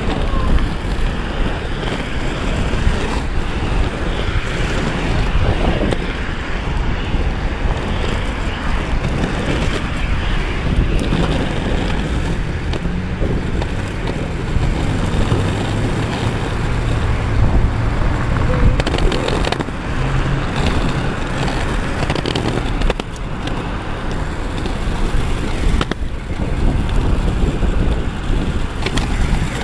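Stereo Vinyl Cruiser skateboard's wheels rolling fast down an asphalt street, a steady rumble mixed with wind buffeting the microphone. There are a few sharp clicks along the way.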